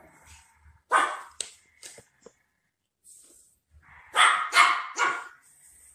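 Dog-like barking: a few short single barks, then three loud barks in quick succession about four seconds in.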